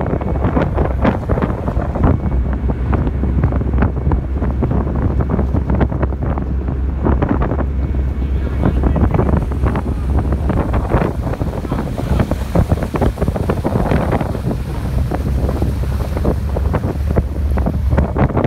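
Wind buffeting the microphone in irregular gusts, over a steady low rumble from the vehicle ferry's engines.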